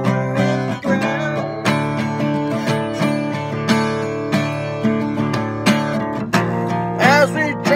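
Steel-string cutaway acoustic guitar strummed in a steady rhythm, the chords ringing between strokes. A voice comes in briefly near the end.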